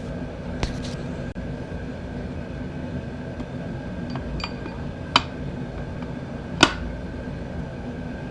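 A few sharp metallic clinks of parts being set into an E4OD automatic transmission during reassembly, the loudest two about five and six and a half seconds in, over a steady background hum.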